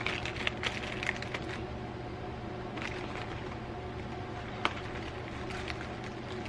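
Cardboard advent calendar being handled and a door opened: scattered soft rustles and light clicks, most in the first second and a half, with one sharp tap a little before five seconds in.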